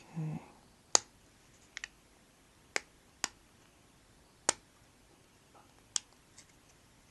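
A handful of sharp, irregular clicks as small iPhone 3GS parts are handled and pressed together by hand during reassembly, one of them a quick double click.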